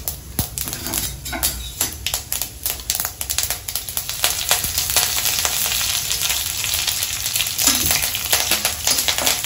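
A tempering spluttering in a little hot oil in an iron kadai: mustard seeds, chana dal and urad dal crackling with many sharp pops. Curry leaves dropped in a few seconds in are followed by a steadier sizzle, and a steel spatula stirs near the end.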